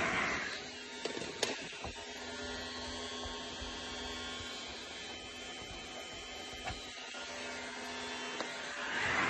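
A handheld heat gun's blowing cuts off about half a second in, leaving a low steady hum with a few small clicks. The heat gun starts blowing again near the end.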